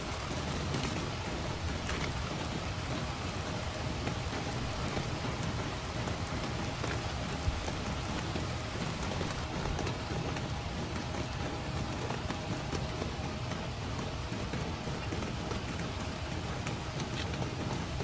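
Steady rain falling on a tent, with one small sharp knock about seven and a half seconds in.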